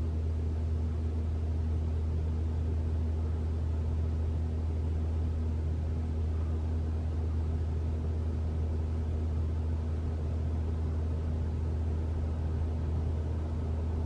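2021 Toyota RAV4 Prime's heat pump humming steadily in EV mode, with the cabin fan blowing, heard inside the cabin. It is the normal hum, without the abnormal heat-pump noise the owner is trying to reproduce.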